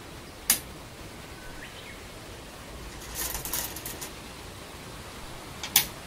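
Go stones clicking sharply onto a wooden board twice, about half a second in and again near the end, with a short rattle of stones in the middle, over steady broadcast-tape hiss.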